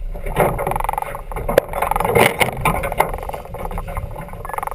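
Farr 40 racing yacht under way: water rushing and splashing along the hull in irregular surges, with a couple of sharp knocks from the deck or rigging.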